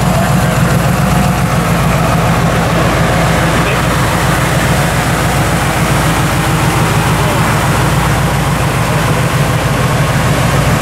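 Turbocharged V8 of a Brutus IOUS custom car idling steadily with a low rumble, with people talking in the background.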